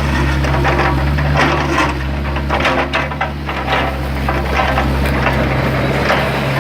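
Excavator's diesel engine running steadily under load, with repeated scraping and clattering as its bucket digs through dirt and rock.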